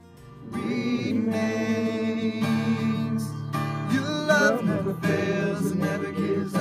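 Acoustic guitar strummed with a voice singing along, starting about half a second in.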